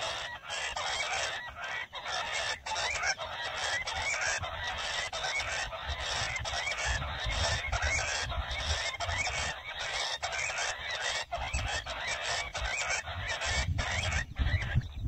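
Recorded jungle bush quail calls played through a loudspeaker as a trapping lure: a dense chorus of harsh calls with short gaps about once a second. It cuts off about a second before the end.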